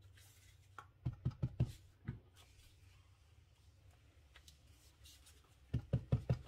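Rubber stamp tapped in quick succession on an ink pad and card on a tabletop: a run of four or five soft thumps about a second in, one more shortly after, and another quick run near the end.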